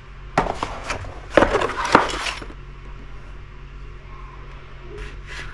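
A large fixed-blade knife, its sheath and cardboard packaging being handled on a glass tabletop. A knock comes about half a second in, then a cluster of clinks and rustles between one and a half and two and a half seconds, then quieter handling.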